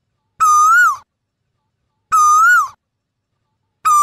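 Male Asian koel calling: one clear whistled note repeated three times, about every second and a half, each held level and then rising a little before it drops away at the end.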